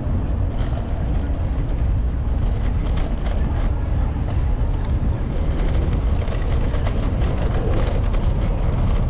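Steady low rumble of wind buffeting the microphone and road noise from a moving bicycle, with a few faint ticks.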